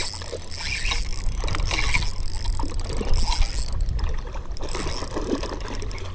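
Shimano Stradic Ci4+ spinning reel being cranked to wind in a hooked largemouth bass, with a low rumble underneath.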